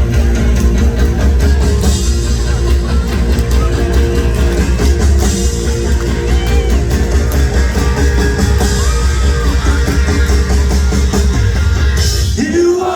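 Live rock band playing loud: electric guitar, bass and drum kit. The band stops abruptly near the end.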